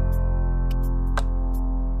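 Background music: sustained chords with light ticks keeping a steady beat.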